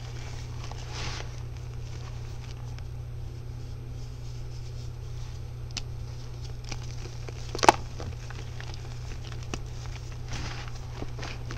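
A soft, powdery pink block crumbled and crushed between the hands into loose powder: a steady soft crunching patter with a few small ticks and one sharp snap about two-thirds of the way through. A steady low hum runs underneath.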